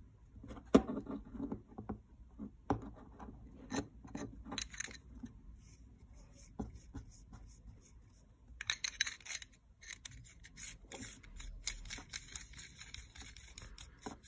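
Metal parts of an Angénieux Retrofocus Type R11 28 mm f/3.5 lens handled and fitted together: light clicks and knocks, a scraping stretch near the middle, then softer rubbing as the focusing barrel is worked onto its brass helicoid.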